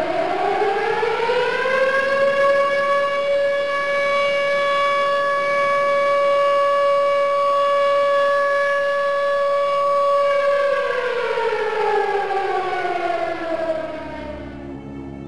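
Outdoor warning siren winding up in pitch over about two seconds, holding one steady tone, then winding down again over the last few seconds.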